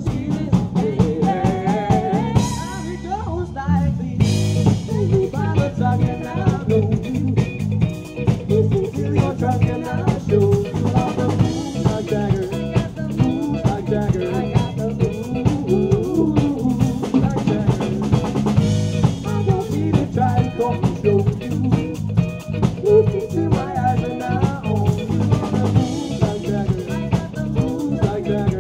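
Live band playing a song: a drum kit keeps a steady beat under bass guitar, electric guitar and accordion, with a voice singing.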